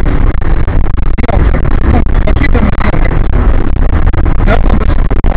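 Road and engine noise inside a car driving at highway speed, picked up by its dashcam: a heavy, steady low rumble with many small knocks and rattles.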